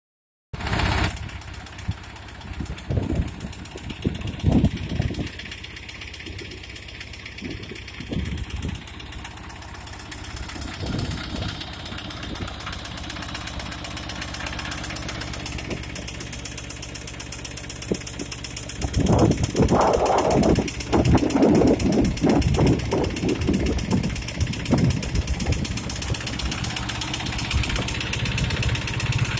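Captain 250 DI mini tractor's 23 hp Simpson diesel engine running steadily with a diesel knock while driving a centrifugal pump. A few low thumps come about four seconds in, and the sound grows louder and rougher about two-thirds of the way through.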